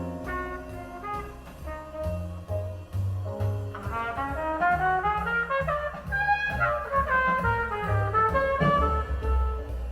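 Jazz with horns over a bass line, played back through Sound Lab G7-5C electrostatic loudspeakers in a listening room. The horn line climbs and gets louder from about four seconds in.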